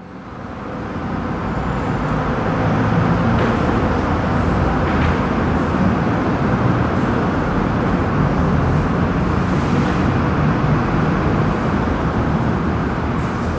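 Road traffic: a steady noise of passing cars and buses that fades in over the first couple of seconds.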